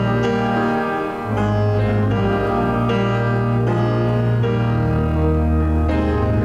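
Slow instrumental keyboard music with held chords over long sustained bass notes; the bass note changes twice.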